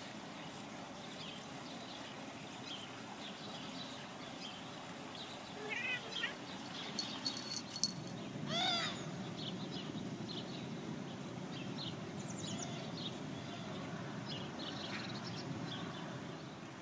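Outdoor nature ambience: a steady background hiss with scattered short, high bird chirps, and one louder, longer call about halfway through.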